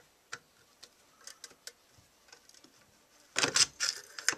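Small metal-on-metal clicks and taps of a screwdriver working the synchronizing adjustment screw on a bank of motorcycle carburetors, with a louder run of clicking and rattling about three and a half seconds in.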